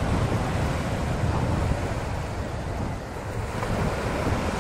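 Small waves breaking and washing up a sandy beach, with wind buffeting the microphone in gusts.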